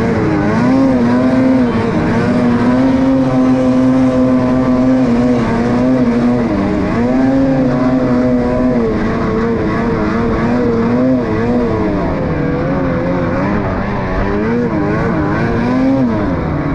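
Ski-Doo snowmobile engine running hard under load on an uphill climb, its pitch holding and then rising and falling several times as the throttle changes.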